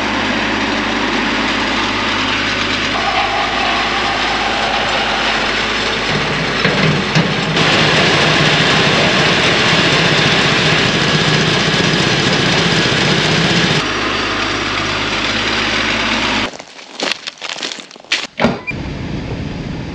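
Small petrol engines running steadily: a grain auger's engine and a portable water pump, while water is run through the auger to flush out grain seed treatment. About three-quarters of the way through this gives way to footsteps crunching on dry gum leaves.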